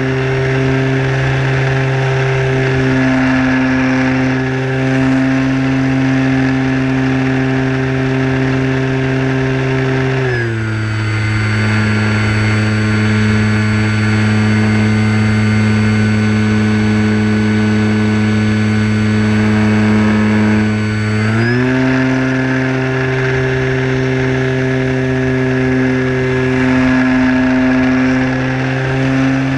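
Electric motor and propeller of a Sport Cub RC model plane running in flight, heard from a camera on the plane itself. The steady whine drops in pitch about ten seconds in as the throttle is eased back, then rises again about eleven seconds later as power is added.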